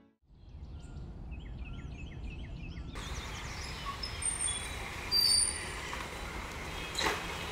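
Quiet room ambience with a faint chirp repeated several times a second. About three seconds in it changes to steady outdoor street noise with birds chirping as a motor scooter pulls up. There is a brief louder burst about five seconds in and a sharp knock near the end.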